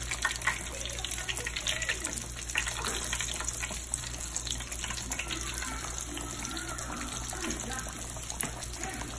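Flour-dredged cube steaks frying in hot oil in a skillet: a steady sizzle with dense crackling and popping.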